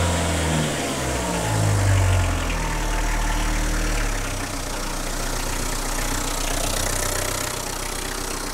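Renault 1.9 diesel F8Q engine just started, its revs rising and falling in the first few seconds and then settling to a steady idle. No belt squeal: the new crankshaft damper pulley has cured the squeal that the worn rubber of the old pulley caused.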